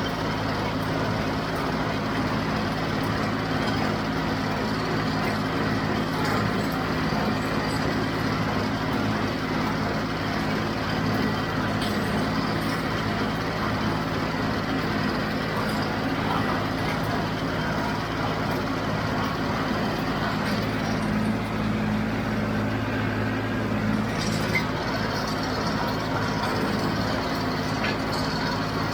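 John Deere 5055 tractor's diesel engine running steadily under load while pulling a John Deere 348 square baler through the hay, with a few faint clicks from the machinery.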